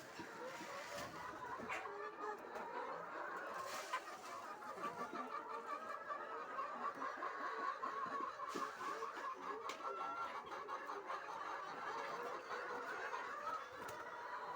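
A flock of laying hens clucking together, many short overlapping calls at once, with a few sharp clicks in between.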